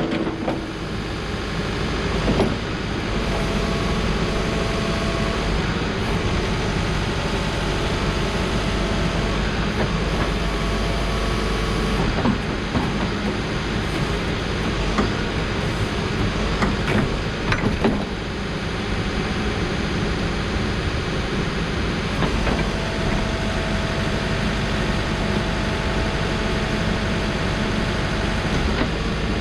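Case 590 Super N loader backhoe's diesel engine running under load as the hydraulics are worked, with a whine that comes and goes and a few knocks and clanks from the moving arms.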